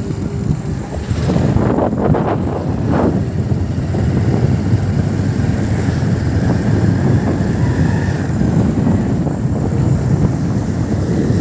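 Motorcycle engine and road noise heard from the rider's seat while riding, with wind rumbling on the microphone.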